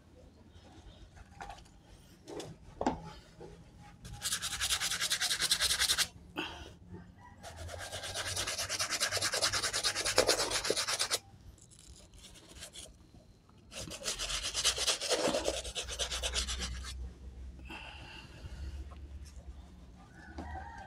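Stiff-bristled scrub brush scrubbing a soapy sneaker in three bouts of quick back-and-forth strokes, the longest about four seconds, with quieter pauses between them.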